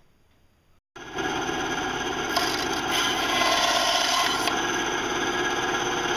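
Bandsaw running and cutting a small white plastic rod, starting abruptly about a second in. The noise gets louder in the middle while the blade is through the plastic, then eases off a little.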